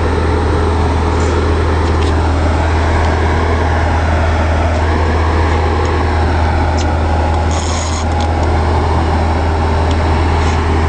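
Steady low drone of the sportfishing boat's engines running at idle, with a hiss of wind and water over it.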